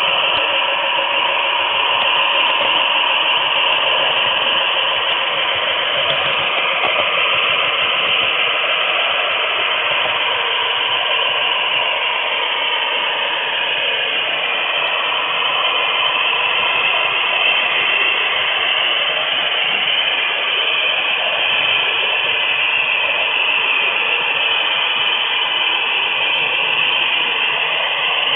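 HO-scale model train rolling along the track, picked up through a camera taped to a flat car in the train: a steady whirring rattle of wheels on rail with a faint whine that drifts a little in pitch.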